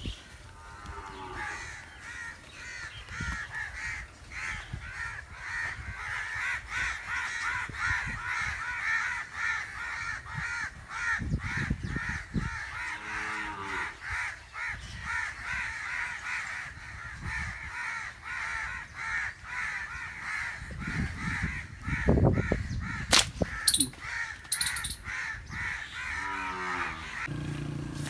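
A flock of birds calling continuously, rapid overlapping calls in a dense chorus, with a few sharp knocks near the end.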